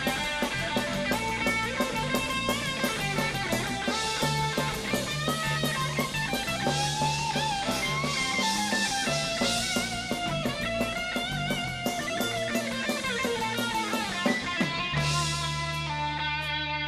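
Instrumental passage of a rock song: electric guitar lines that bend in pitch over a steady drum beat and bass.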